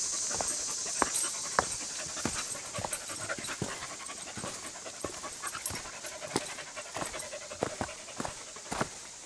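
A dog panting while walking, over irregular footsteps on a rocky dirt trail, with a steady high hiss behind.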